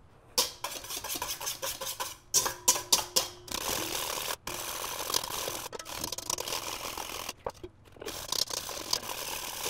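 Wire whisk beating egg yolk and olive oil into mayonnaise in a stainless steel bowl, a rapid rattling and scraping of the wires against the metal, sped up, with a few brief breaks.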